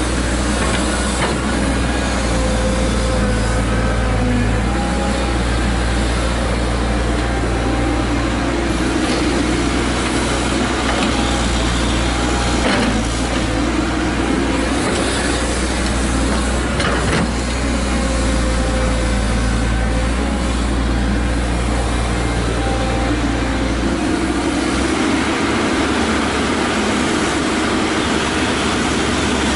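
Cat 312C hydraulic excavator's diesel engine running under load, with a wavering hydraulic whine as the boom and bucket dig and swing. There are a few sharp knocks as dirt and clods drop into the steel end-dump trailer, and the engine note drops near the end.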